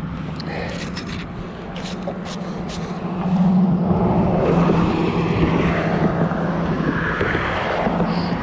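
Highway traffic passing by, with a vehicle growing louder about three seconds in and its steady drone holding on. A few light clicks come in the first three seconds.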